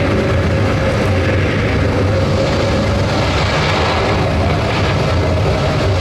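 Storm soundtrack of a real-time ocean-wave simulation, played loud over a hall's loudspeakers: a steady rush of gale wind and heavy sea over a low droning hum.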